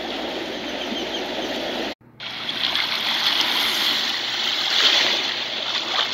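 Shallow Caribbean sea water washing over the sand at the water's edge: a hissing, fizzing wash of a small wave that swells to a peak and eases off. Before it, a lower steady outdoor noise cuts off abruptly about two seconds in.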